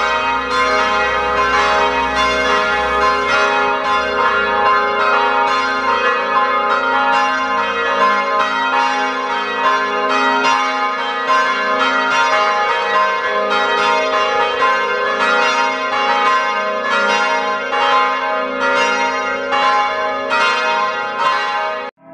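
Several church bells ringing together in a full peal from a bell tower, strokes overlapping one another continuously with a long ringing hum. The sound cuts off abruptly near the end.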